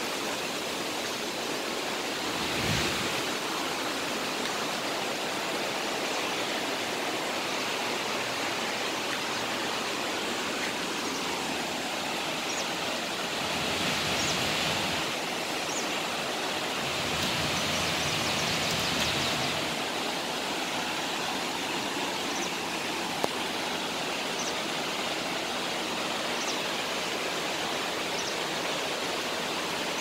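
Waterfall rushing: a steady, even rush of falling water that swells slightly a few times, with one sharp click about three-quarters of the way through.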